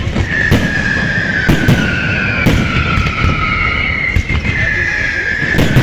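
Fireworks going off: a string of sharp bangs and cracks, with high whistles that overlap and slowly fall in pitch over several seconds.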